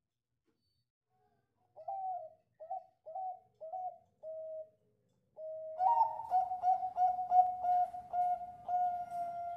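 Bangkok-line zebra dove (perkutut) singing. About two seconds in come five short separate coos. They are followed by a longer held note that breaks into a fast rolling run of coos, about three a second, lasting until the end.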